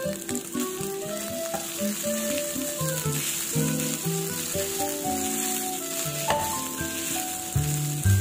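Fried rice sizzling in a nonstick frying pan as it is stirred and tossed with a spatula. Background music with a simple melody plays over it.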